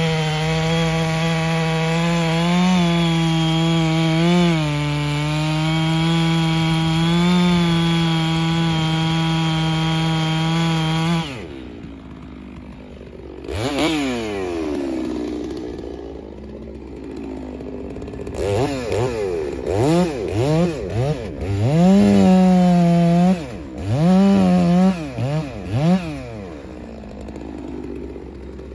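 FarmMac F660 chainsaw, a clone of the Stihl 660 with a large two-stroke engine, running at full throttle while cutting through a big log for about eleven seconds, then dropping to idle as it comes out of the cut. It is revved once, then blipped several times in quick succession a few seconds later before settling back to idle.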